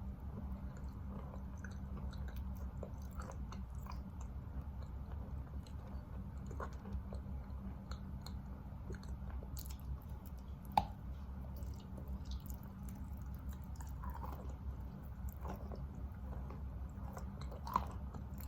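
A person chewing wet Khrapovsky chalk close to the microphone: soft, gritty crunching as the grainy chalk is ground into a paste, with two sharper crackles, about eleven and eighteen seconds in, over a steady low hum.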